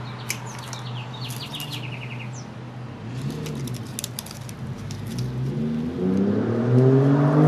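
A bird chirps in quick, stepped trills in the first two seconds, with light clicks and rustling of dry plant debris being handled. Near the end a vehicle engine rises in pitch and grows louder.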